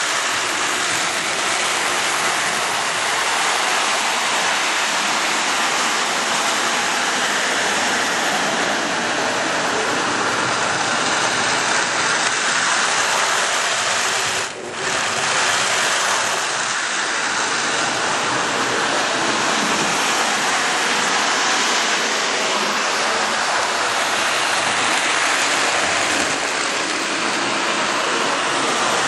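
O-gauge toy train running on Lionel FasTrack: a steady, loud rushing rumble of wheels and motor on the track, briefly dropping away about halfway through.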